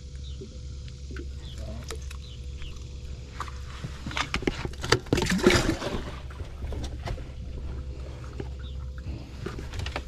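A flurry of knocks and scrapes on the fibreglass boat, loudest between about four and six seconds in, as a caught flounder is put away. A steady low hum runs underneath.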